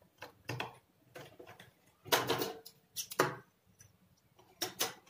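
Domestic sewing machine stitching a seam in several short, uneven runs, its needle mechanism clattering and ticking, with fabric rustling between runs.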